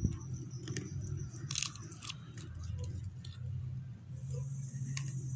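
Beagle chewing raw chicken breast on the bone: a few separate sharp crunches of bone, the loudest about one and a half seconds in, over a steady low background hum.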